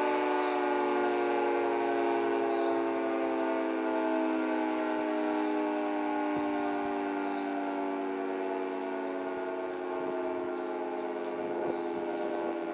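Federal Signal 2T22 dual-tone outdoor warning siren sounding its two-tone chord, its pitch slowly sagging and its level gradually fading.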